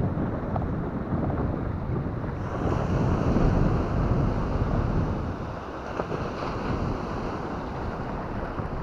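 Wind buffeting the microphone over water rushing and splashing along a fishing kayak's hull. The hiss of the water grows louder about two and a half seconds in.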